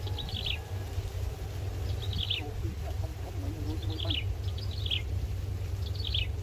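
A bird calling over and over, a short run of high notes that falls in pitch, repeated about every couple of seconds. A steady low rumble lies under it.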